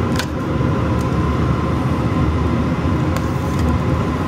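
Steady low mechanical hum, with a few light clinks of a metal spoon against a stainless steel pot as mashed potatoes are scooped out.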